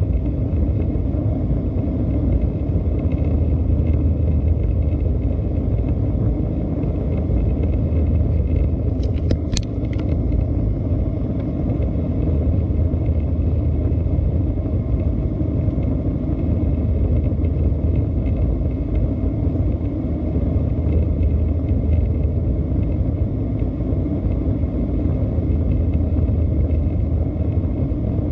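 Steady low rumble of an Airbus A320-214's CFM56 jet engines, with faint steady whining tones above it. A brief cluster of sharp clicks comes about nine seconds in.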